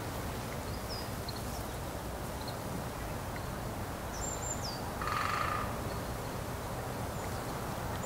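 Steady rain, an even hiss, with a few short high bird chirps and one harsh bird call about five seconds in.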